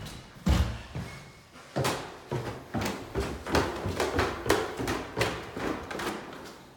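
Footsteps going down a staircase: a heavy thud about half a second in, then a steady run of footfalls, about three a second.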